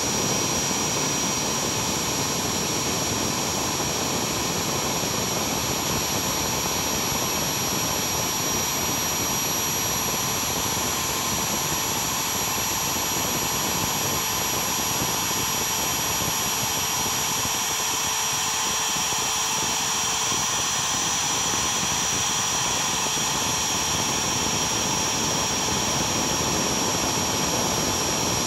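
A CNC spindle motor running steadily with a high whine while a small two-flute upcut end mill takes a shallow cut in steel plate.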